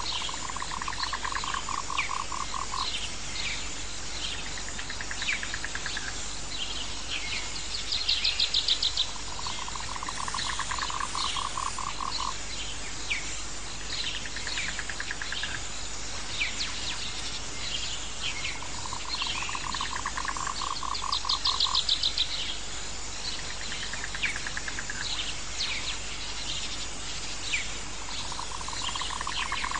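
Frogs and birds in a nature soundscape. A low pulsed frog trill about two and a half seconds long repeats roughly every nine to ten seconds. Two louder, higher rattling calls come at about 8 and 21 seconds, over scattered short high chirps and a steady hiss.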